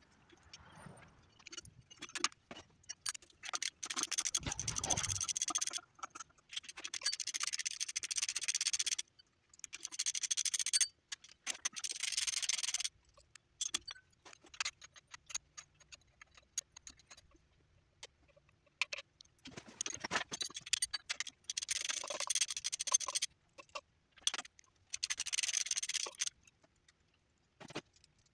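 Socket ratchet clicking in repeated bursts of one to three seconds as the intake manifold bolts on a small-block V8 are backed out, with single metallic clicks of tools and bolts in between.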